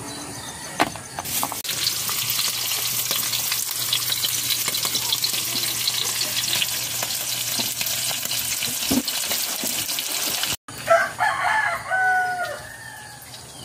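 Dried fish sizzling as it fries in a wok, a steady hiss with many small crackles. The sizzling cuts off suddenly near the end and a rooster crows.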